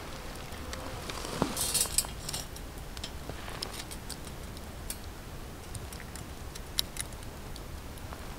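Metal clinks and rattles of a wire grilling basket being handled, with a quick cluster of clinks about one and a half to two seconds in, then a few scattered sharp ticks.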